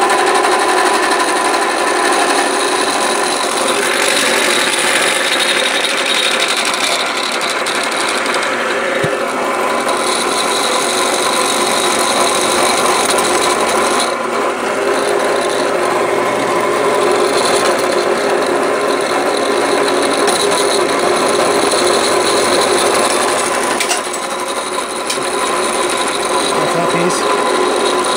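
Drill press spinning an end mill that is side-cutting aluminum held in a milling vise: a steady grinding, whining cut. The cut vibrates because the vise is not bolted to the table.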